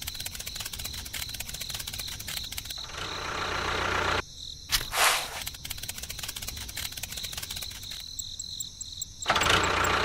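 Small motor of a miniature DIY tractor running: a rapid clicking buzz with a steady high whine. It thins out briefly about four seconds in and again near the end.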